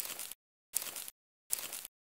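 Three short hiss-like bursts of an edited-in sound effect, evenly spaced about three-quarters of a second apart with dead silence between, each marking toy watermelons popping into place in a stop-motion sequence.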